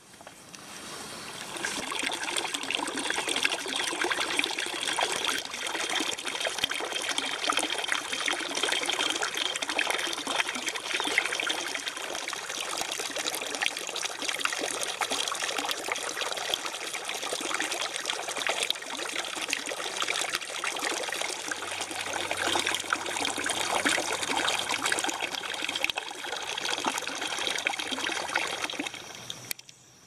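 Steady trickling, running water that cuts off suddenly near the end.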